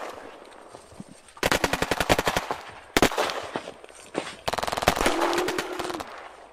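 Simulated machine-gun fire in three bursts of rapid, evenly spaced shots, the first starting about a second and a half in.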